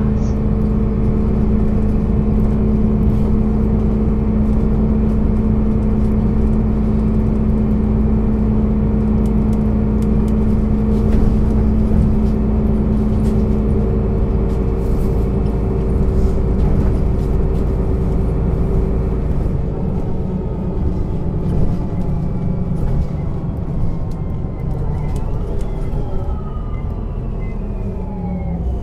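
Diesel engine of a 2006 Solaris Urbino 12 III city bus running, a steady drone with a hum whose tone changes about halfway through. Near the end several tones fall in pitch.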